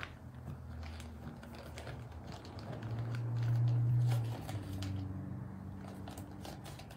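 Plastic bags handled and squished between the hands, one coated in shortening, the plastic crinkling in many small irregular crackles. Under it a low hum swells for about a second and a half around the middle.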